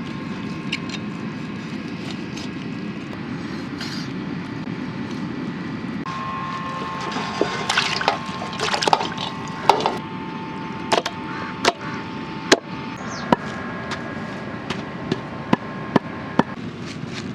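Chopping with a knife: sharp, irregular strikes that start about seven seconds in and come roughly once or twice a second, over a steady low hiss.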